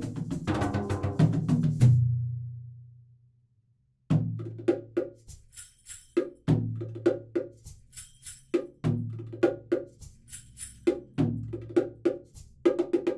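Instrumental music with percussion over a low bass note. It dies away about two seconds in and is silent briefly. About four seconds in it comes back with a repeating percussion pattern.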